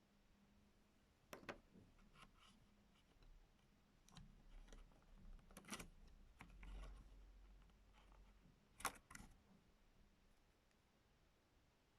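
Faint handling of small laptop parts: a few scattered sharp plastic-and-metal clicks, the sharpest pair about nine seconds in.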